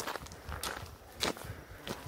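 Walking footsteps crunching on a leaf-covered dirt trail, steady at about one step every 0.6 seconds.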